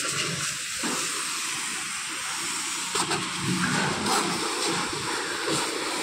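High-pressure washer jet hissing steadily as it sprays water onto a big baler's metal panels and tyres to wash off field mud. A faint low hum runs underneath.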